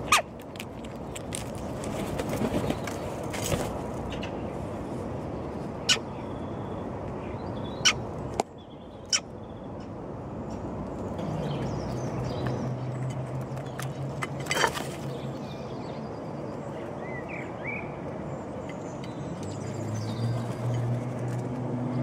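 Sharp taps of starlings and a woodpigeon pecking mealworms off a concrete windowsill, with brief wing flutters and a few faint chirps, over steady outdoor background noise. A low steady hum comes in about halfway and again near the end.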